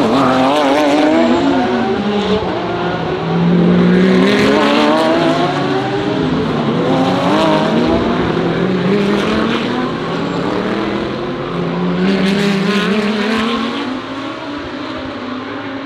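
Several GT3 race cars running at racing speed, their engine notes overlapping and sweeping down and up in pitch as they brake and accelerate, loudest about four seconds in and again about twelve seconds in.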